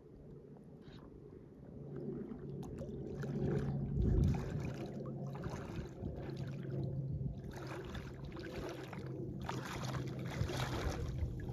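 Small waves lapping and splashing at the water's edge in several washes of about a second each. Under them runs a steady low hum, and a low thump of wind on the microphone comes about four seconds in.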